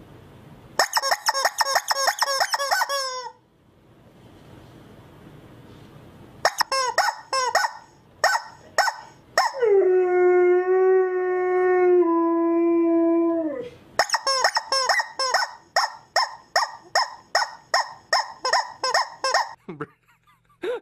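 Rubber chicken squeaky toy squawking in fast runs of short squeals, about five a second, with one long held squeal in the middle, and a husky howling along.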